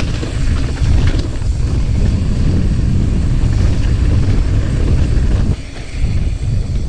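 Strong wind buffeting the microphone: a loud, gusting low rumble that eases briefly near the end.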